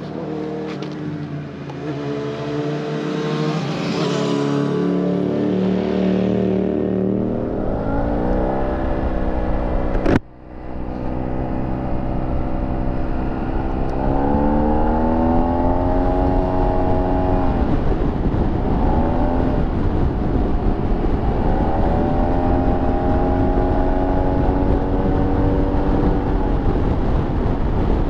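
Motorcycle engine accelerating under way, its pitch climbing and then levelling off several times over steady road and wind noise. A sharp click about ten seconds in, with a brief dropout in the sound.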